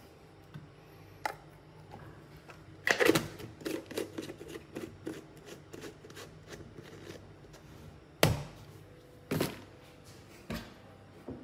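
Kitchen handling sounds: dishes, utensils and containers being picked up and set down, making scattered clicks and knocks. A loud clatter comes about three seconds in, and sharp knocks come about eight and nine seconds in.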